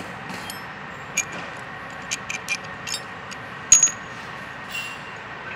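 Metal hand tools and bolts clinking as they are picked up and set down on a concrete floor: a run of sharp clinks with a short ring, the loudest about three and a half seconds in, over a steady background hiss.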